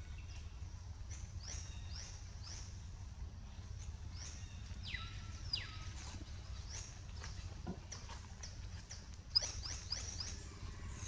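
Short, high-pitched squeaky animal chirps, each falling in pitch, repeating irregularly about every half second, with two longer downward-sliding calls about five seconds in, over a steady low rumble.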